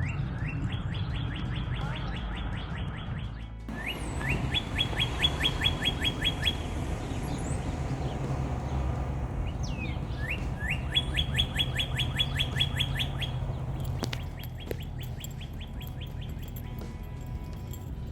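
Northern cardinal singing: four phrases of quickly repeated, down-slurred whistled notes, with higher, thinner notes above them in two of the phrases, over steady low background noise.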